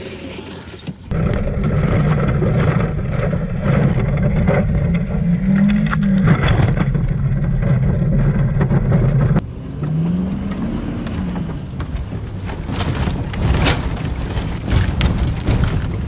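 Ford Escape engine and body heard from inside the car as it bounces across a rough field after landing a jump: a heavy rumble with rattling, the revs rising and falling twice. Then a lower vehicle drone with several sharp knocks, as clods of dirt are thrown about.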